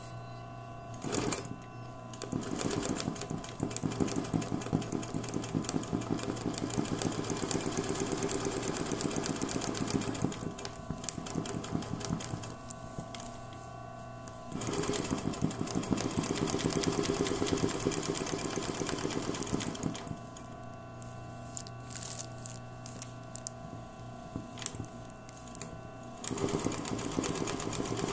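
Sewing machine doing free-motion embroidery in a hoop, its needle running fast in three runs of several seconds each, with short pauses between them and a steady low hum underneath.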